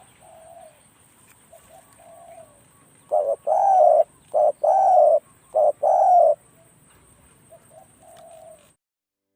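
Spotted doves cooing: one calls loudly close by with three short-then-long coo pairs in the middle, while fainter coos come before and after. A thin steady high whine runs underneath, and the sound cuts off suddenly near the end.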